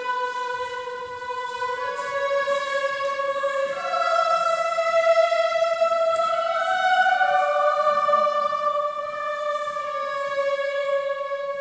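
Choir singing slow, long-held chords, the notes moving to new pitches every second or two and swelling louder in the middle. The voices ring on in the large church nave.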